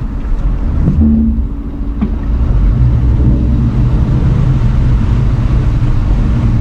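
Jeep Cherokee Trailhawk running on an off-road trail: a steady low engine and drivetrain rumble, dipping briefly about a second and a half in.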